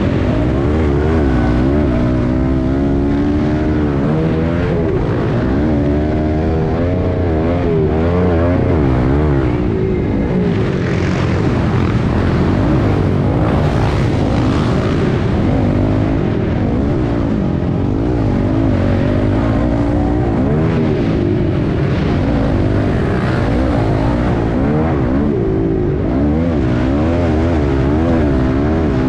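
Dirt bike engine racing under hard throttle, heard from on board the bike, its revs rising and falling every second or so as the throttle is worked.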